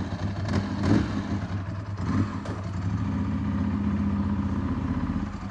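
The Ducati 748SP's 90-degree V-twin engine running at steady revs, with two short clattering knocks about half a second and one second in; the engine note holds steady from about three seconds in.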